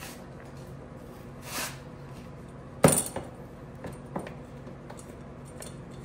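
A tubular front bumper knocking and scraping against the snowmobile's front plastics and frame as it is wiggled free: a soft scrape, one sharp clank about three seconds in, then a few lighter metallic clicks.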